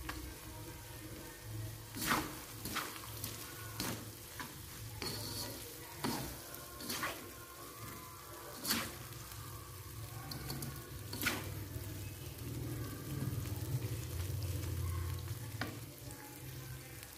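Chili sambal with salted squid and jengkol frying in a non-stick wok, a low sizzle. It is broken by irregular scrapes and clicks as a plastic slotted spatula stirs and turns it against the pan.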